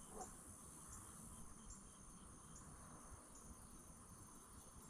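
Near silence, with faint high insect chirps repeating every half second to a second.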